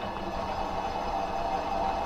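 A 7x12 mini lathe running steadily, its motor and gearing giving a constant hum of several tones, while a boring bar takes a light cut on the squish band of a Stihl 026 chainsaw cylinder.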